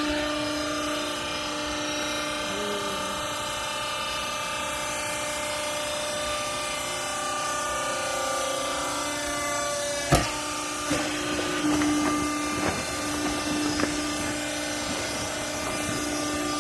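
Used-clothes hydraulic baler's pump and electric motor running with a steady hum. A single sharp bang about ten seconds in, followed by several irregular knocks and clatters.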